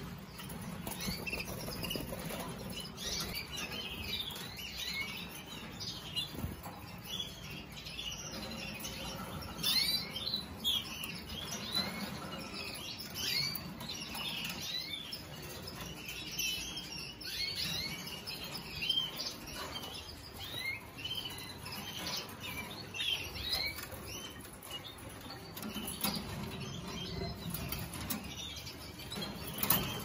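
Several caged canaries chirping in short, high notes all through, with wings fluttering as they flit between perches and a few sharp clicks.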